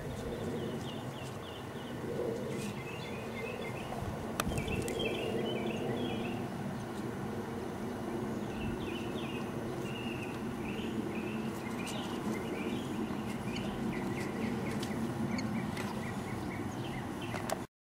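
Birds chirping in scattered short runs of quick, high notes, over a steady low hum.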